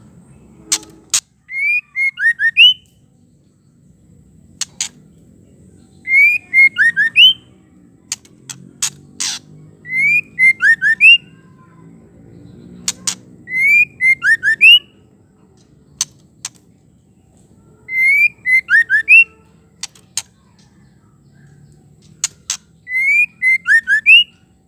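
White-rumped shama calling: a short phrase of four or five whistled notes that swoop up and down, repeated six times about every four seconds. Sharp single clicks fall between the phrases.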